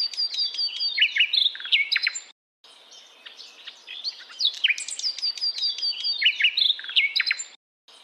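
Songbirds chirping and singing in quick, overlapping high-pitched calls and trills. The same few seconds of birdsong repeat, cutting to silence briefly about two seconds in and again near the end.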